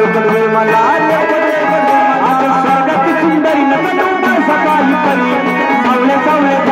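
Marathi jagran gondhal folk music: a melody that slides in pitch over drums keeping a steady beat.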